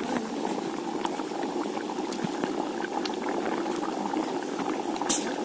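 Chicken curry gravy bubbling at a rolling boil in a large metal pot over a wood fire: a steady, dense bubbling. A sharp click about five seconds in.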